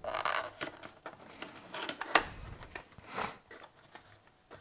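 Cardboard retail box being handled and opened: irregular rustling and scraping of the packaging, with one sharp click about two seconds in.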